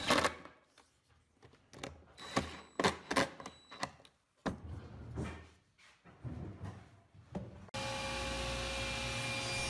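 Cordless impact driver driving wood screws into a plywood sled in short bursts of rattling clicks, with pauses between. About eight seconds in, a steady hum takes over.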